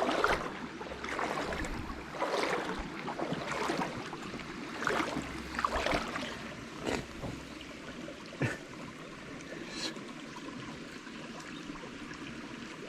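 Small river flowing, with gusts of strong wind buffeting the microphone in the first half. A few sharp clicks come later.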